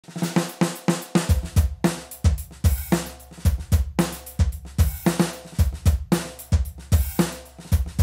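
Sampled acoustic drum kit from the DS Drum RCS Essentials library playing a programmed groove. A quick run of hits opens it, and kick drum, snare and cymbals come in a little over a second in.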